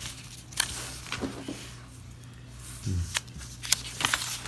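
Paper crackling and rustling as a folded instruction leaflet is picked up, unfolded and handled, in a series of short sharp crackles that come thicker in the second half. A brief low hum of a voice about three seconds in.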